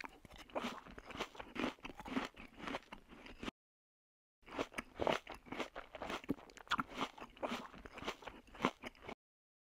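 A beagle eating watermelon flesh out of a hollowed rind: irregular wet crunching and chewing. It breaks off for about a second a little over three seconds in, then goes on.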